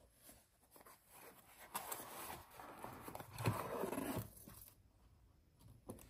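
Small cardboard box being opened by hand: flaps rustling and scraping while a centrifugal clutch is lifted out, loudest about halfway through.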